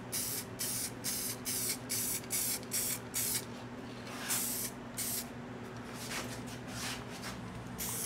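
Aerosol spray can of flexible vinyl coating hissing out in short bursts, several a second, with a longer spray just after four seconds and a brief pause after it: light coats being laid on to avoid runs. A steady low hum runs underneath.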